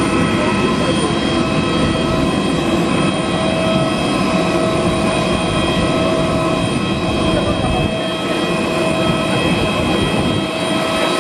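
Turbine whine from a parked Airbus A320: several high steady tones held over an even rumbling noise, running without a break.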